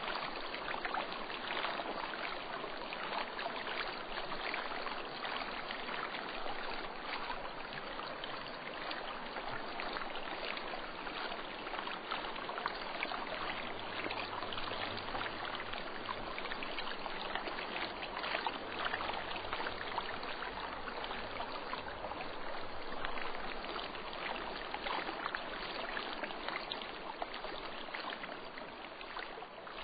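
Running water of a stream: a steady rushing with fine splashing crackles throughout.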